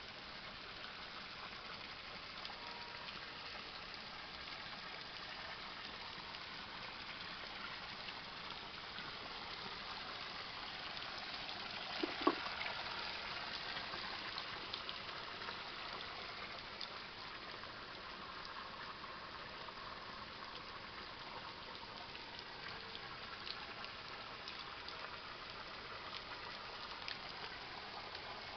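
Water of a small rocky forest stream running steadily, with one sharp knock near the middle.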